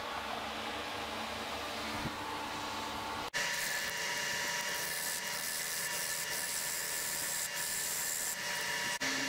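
Wood lathe running steadily, with a turning gouge cutting the spinning blank of spalted, punky wood in a steady scraping hiss; the sound changes abruptly about a third of the way in at an edit, after which the cutting hiss is stronger.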